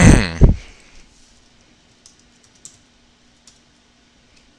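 A loud, brief thump in the first half second, then a few scattered, faint key clicks from typing on a computer keyboard.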